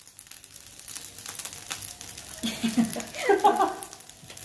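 Fried rice sizzling and crackling in a frying pan, with small scrapes and clicks, fading in at the start. A person's voice sounds briefly about two and a half seconds in and is the loudest part.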